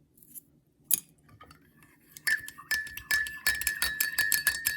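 A spoon stirring a Thai coffee or tea over ice in a glass: one clink about a second in, then from about halfway rapid clinking, about five a second, against the glass, which rings.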